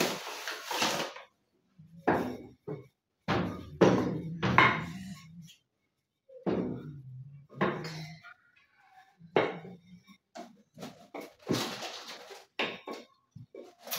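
Wooden rolling pin rolling out dough on a kitchen counter: a run of separate rolling strokes with a low rumble, broken by short knocks as the pin is set down and lifted.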